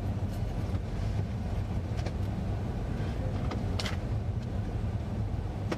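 A steady low rumble of a motor vehicle running, with a few faint clicks.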